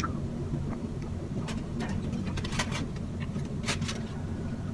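Chewing with a few sharp lip smacks and mouth clicks while eating by hand, over a steady low hum.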